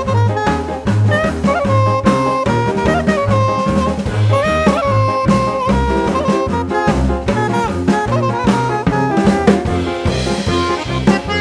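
Background music: upbeat jazz with saxophone or brass lead over a steady drum-kit beat.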